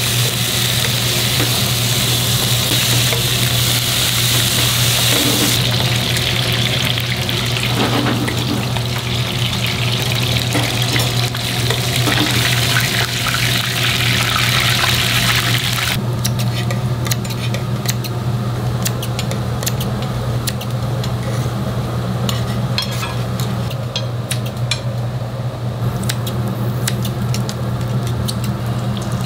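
Beef intestines (gopchang) sizzling loudly on a hot pan, with a steady low hum underneath. About halfway through the sizzle dies down, and many sharp metal clicks and taps of utensils on the pan take over.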